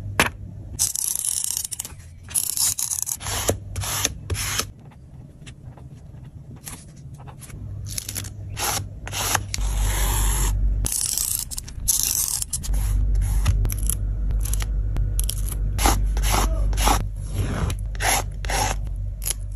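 Close-up journaling sounds of sticker paper being handled: short scratchy strokes as stickers are peeled, rubbed down and cut with a pen-style craft knife along a ruler, with paper rustling in between.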